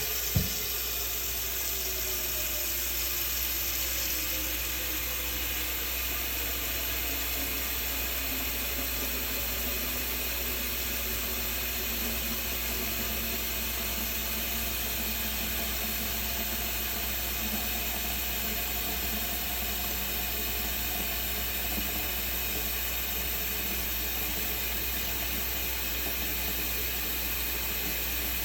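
Water hissing steadily, with faint tones that slide down in pitch over the first several seconds.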